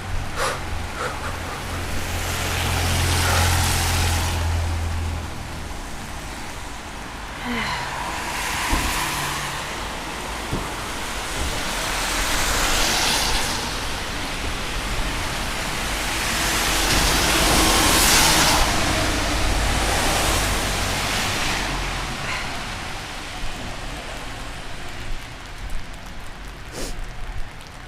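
Cars passing on a wet road, each one a hiss of tyres on water that swells and fades over a few seconds, several times, over steady rain.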